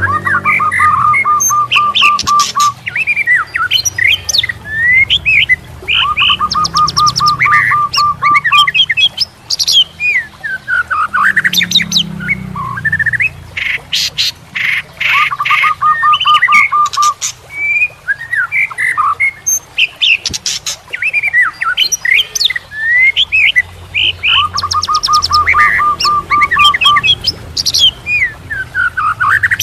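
A songbird singing loudly and continuously: bright chirps and whistled upward and downward glides, broken several times by a fast trill of evenly repeated notes lasting two to three seconds.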